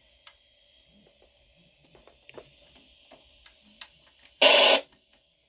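Portable black-and-white TV just switched on, with faint ticks and a low hiss. About four and a half seconds in comes a loud half-second burst of static hiss from its speaker.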